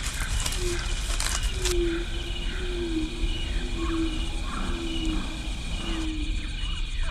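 Tropical outdoor ambience of insects and birds: a steady high insect drone, a short chirp repeating about three times a second, and a series of low, slightly falling hooting notes, each under a second. A few clicks sound about a second and a half in.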